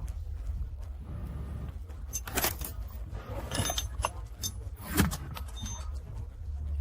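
Small metal objects clinking and jingling in a few clusters, the loudest clink about five seconds in, over a steady low hum.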